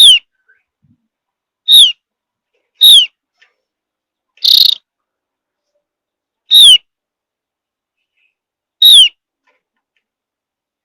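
Javan grey-throated white-eye giving short, sharp, downslurred whistled calls, six in all, spaced one to two seconds apart. The fourth call, about halfway through, is a harsher, buzzier note.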